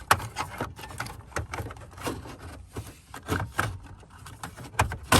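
Scattered plastic clicks and knocks from handling a GMC Sierra headlight dimmer switch as it is worked loose from the dash trim, its retaining clips undone. The sharpest clicks come at the very start and again just before the end.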